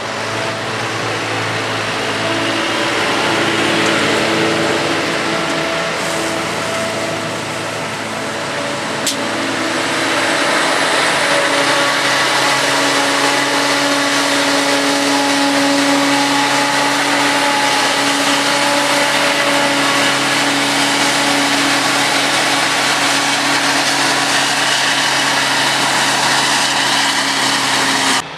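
Tractor and loader wagon running close by, a steady engine drone. About ten seconds in this changes to a CLAAS self-propelled forage harvester chopping whole-crop silage, with the tractor hauling the trailer alongside: steady engine drone under a broad hiss.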